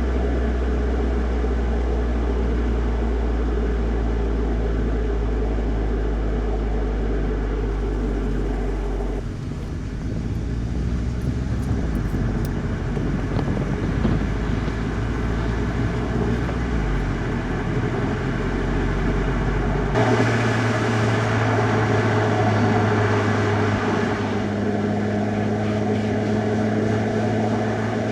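Volkswagen Golf GTI mk7.5 driving, its turbocharged four-cylinder engine humming steadily over tyre and road noise. The engine note changes to a new steady pitch about nine seconds in and again about twenty seconds in, as revs change.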